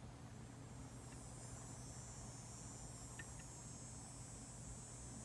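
Faint background: a steady low hum under a steady high-pitched whine, with a few faint soft clicks.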